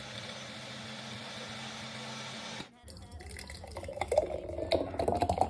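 A Magic Bullet blender running steadily, stopping abruptly about halfway through. Then a thick green smoothie pours into a glass Mason jar in an uneven, splashing stream whose pitch rises as the jar fills.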